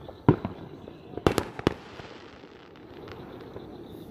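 Fireworks going off: one sharp bang about a third of a second in, then three quick cracks in a row around a second and a half in.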